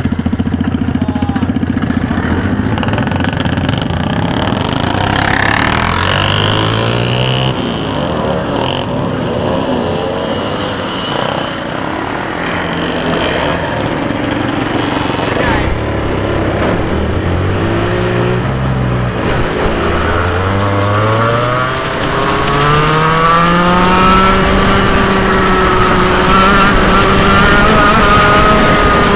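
Dirt kart engine heard from onboard at racing speed, rising in pitch again and again as it accelerates out of the corners, then holding a steady high pitch near the end, over tyre and wind noise.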